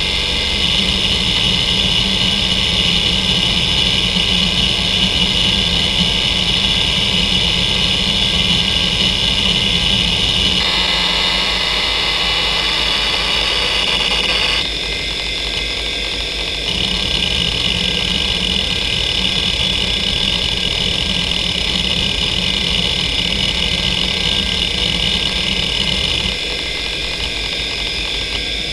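Western Digital Caviar 2340 340 MB IDE hard drive seeking continuously under the Speedsys benchmark: a dense buzzing chatter from the head actuator over the whine of the spindle. The pattern changes about ten seconds in and turns quieter for a couple of seconds around fifteen seconds in, then picks up again. It drops a little near the end as the test moves on.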